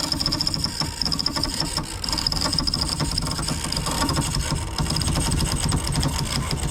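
Rapid, continuous mechanical clicking and whirring of ratcheting rigging gear as line runs through it under the load of the lowering wooden mast.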